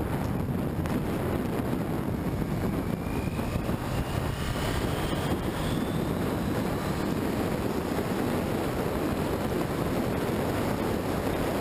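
Steady wind rush buffeting the microphone of a camera mounted low on a moving motorcycle, with tyre hiss from the wet pavement. A faint whine rises in pitch a few seconds in.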